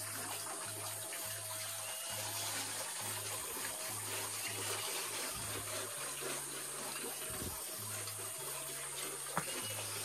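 Water running and splashing steadily into a fish pond.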